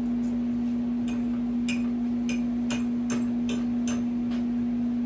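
Eating mouth sounds: a run of sharp, wet clicks about two a second as someone chews. They play over a steady low hum.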